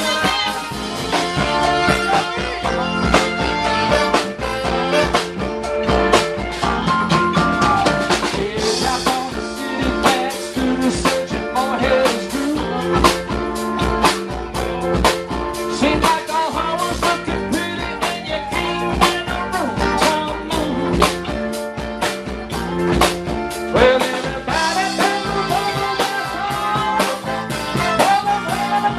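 Live band music: drum kit keeping a steady beat under guitar and other instruments, with a singing voice.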